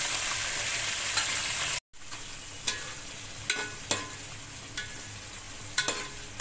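Sliced onions frying in hot oil in a steel pot, sizzling strongly at first. After a short break the sizzle is quieter, and a steel ladle clinks against the pot about five times as the onions are stirred.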